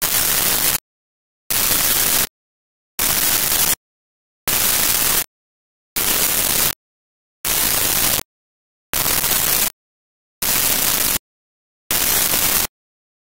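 Pulsed white noise: nine identical bursts of hiss, each about three quarters of a second long, switching on and off sharply at a steady rhythm of one every second and a half, with dead silence between. This is an electronic noise signal rather than any factory sound.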